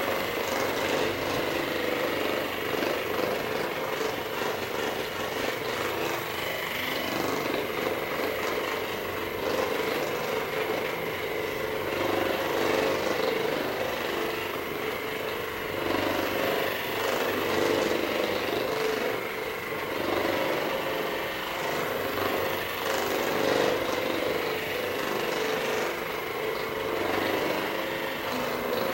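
A small motorized device runs continuously with a steady buzzing hum.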